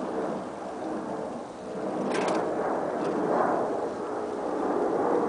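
Wind buffeting the microphone, giving a fluctuating rumbling noise, with a brief click about two seconds in.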